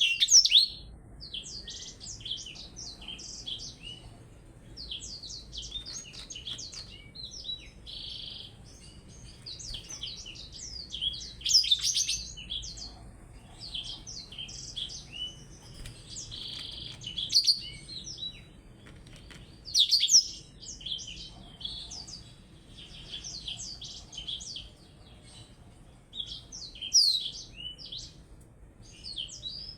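Small songbirds, a blackthroat (black-throated canary) and a gelatik belong, singing against each other in a continuous stream of rapid, high twittering notes, with louder bursts every few seconds.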